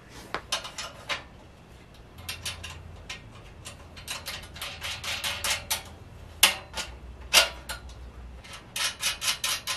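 Light metal clinks and taps of steel sewing-machine stand parts and hardware being handled and fitted during assembly, with two sharper knocks partway through and a quick run of clicks near the end.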